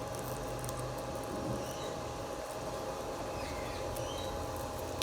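A few faint, short falling bird chirps over a steady background hiss with a constant high hum.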